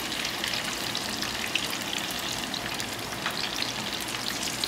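Batter-coated fish pieces frying in a pan of hot oil: a steady sizzle with many small crackles and pops.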